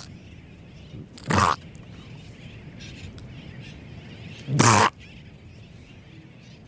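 Mediterranean monk seal calling: two short, loud, throaty calls, the second a little longer, about three seconds apart.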